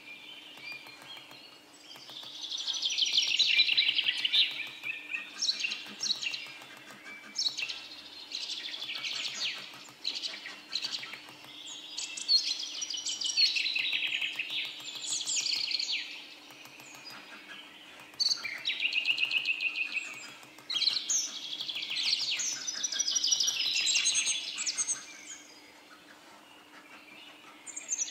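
Hand file rasping back and forth along the cut edges of a pierced copper sheet, in repeated bursts of strokes a second or a few seconds long with short pauses between.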